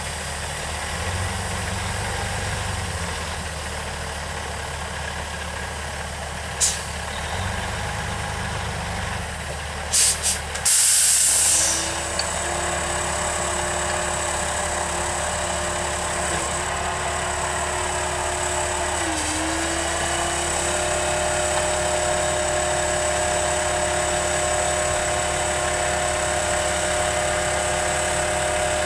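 Freightliner hi-rail dump truck's diesel engine idling. About ten seconds in there are two sharp bursts, then a loud hiss of released air lasting about a second, typical of air brakes. After that a steady whine runs over the idle and dips briefly once.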